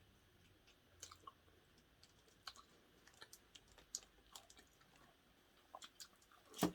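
Faint chewing and small mouth and utensil clicks of someone eating, scattered and irregular, with one louder knock near the end.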